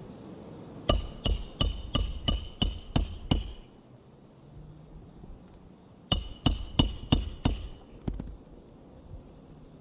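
Hammering with a metallic ring: eight quick blows at about three a second, then after a pause of a few seconds five more.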